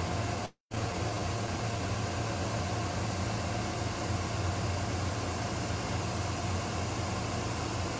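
Wire-drawing and spooling machinery running: a steady hum under a broad hiss, with a brief dropout about half a second in.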